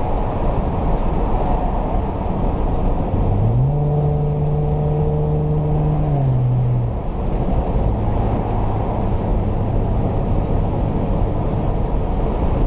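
Road noise inside a Nissan Maxima's cabin at highway speed, with a humming tone that steps up in pitch about three seconds in, holds, then drops back between six and seven seconds and carries on lower.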